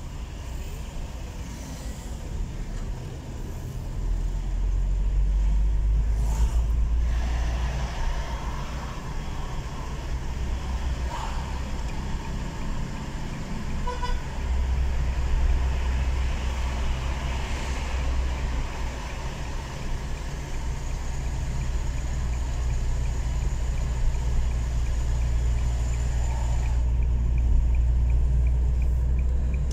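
Car driving in city traffic, heard from inside the cabin: a steady low engine and road rumble. A short beep comes about halfway through, and a light regular ticking runs through the last third.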